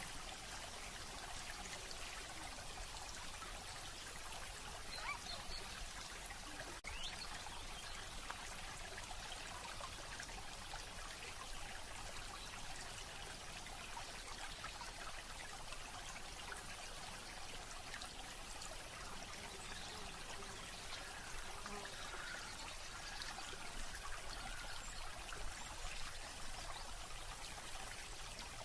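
Steady trickling, flowing water like a small stream.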